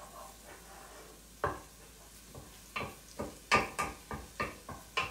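A wooden spoon stirring and knocking against a copper skillet of food on the stove: irregular knocks, sparse at first and coming thick and fast in the second half.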